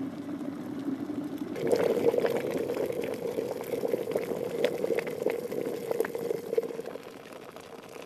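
Glass electric kettle bubbling as its water comes to the boil, with scattered crackles and pops. It gets louder about a second and a half in, when the lid is flipped open, and dies down near the end.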